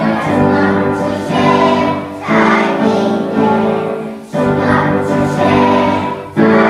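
A children's choir singing together, in short phrases with brief dips between them.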